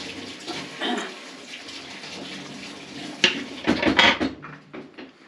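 Flat metal cheese grater being handled and put down on the table: a sharp clatter a little after three seconds in, then a quick run of scrapes and knocks, over a steady hiss.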